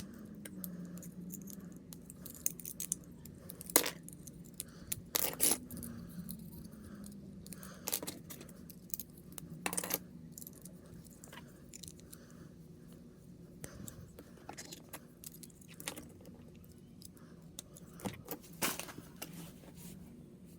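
Small plastic kit pieces clicking and clattering as they are handled and snapped together, with several sharp clicks scattered through.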